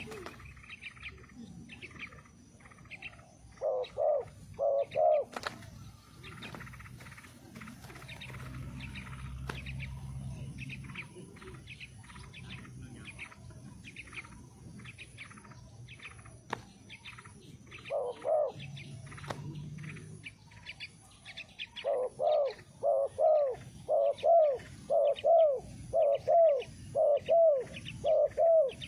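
Spotted dove (tekukur) cooing: short groups of low, arched coos a few times, then a long run of repeated coos in the last third. Smaller birds chirp at a higher pitch throughout.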